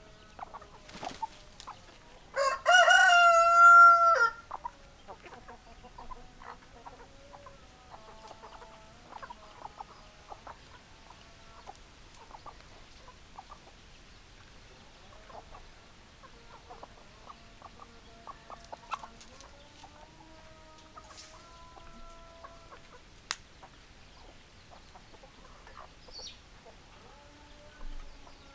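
A rooster crows once, loud, a couple of seconds in. Hens cluck softly throughout, with a few sharp clicks.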